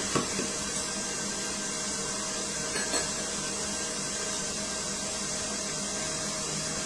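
KitchenAid stand mixer running steadily, its beater creaming margarine and sugar, with a light tap about three seconds in as an egg is cracked on the jug.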